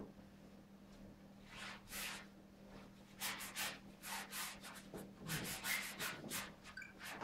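Paintbrush stroking paint across a large canvas: a run of short brushing strokes starting about a second and a half in, coming faster after about three seconds.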